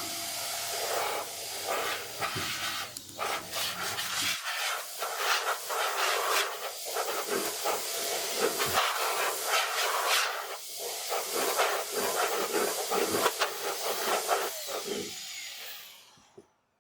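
Compressed air hissing in long, uneven blasts, blowing polystyrene debris out of the synthesizer's card-slot connectors; it stops just before the end.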